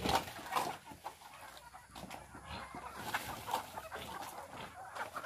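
A flock of native chickens clucking as they crowd around feed, many short calls overlapping irregularly.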